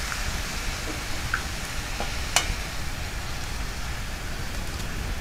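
Egg sizzling as it goes into the hot oil of an aluminium kadai, a steady frying hiss, with a single sharp tap about two and a half seconds in.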